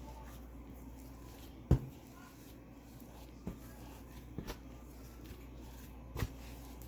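Bread dough being kneaded by hand on a floured counter: a handful of short knocks as the dough is pushed and turned, the loudest a little under two seconds in, over a low steady hum.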